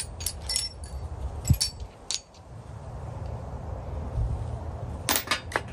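Steel sockets clinking against one another and against the table as they are handled and set down: a few sharp clinks at the start, single ones around the middle, and a quick run of clinks near the end, over a steady low background rumble.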